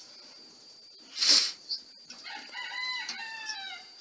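A rooster crowing once: a single call of about a second and a half that starts about two seconds in and falls in pitch at its end. About a second in, a brief loud whoosh comes before it.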